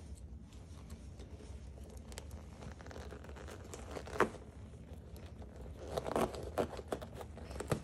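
Rustling and scraping as a pair of bound-together boxing gloves is handled and worked at, with one short sharp sound about four seconds in and a cluster of louder scrapes near the end.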